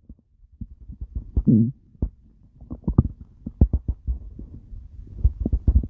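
Human stomach growling and gurgling, recorded close up. There is a short low growl about a second and a half in, among irregular quick pops and thumps that come more densely toward the end.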